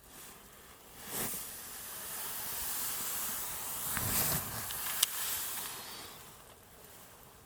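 Water doused onto a burning wood fire, the embers hissing with steam; the hiss swells, holds for a few seconds with a couple of sharp pops, and dies away.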